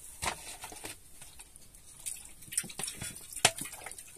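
Scattered clicks, taps and small wet sounds of a utensil and food being handled in a cooking pot, with one sharper knock about three and a half seconds in.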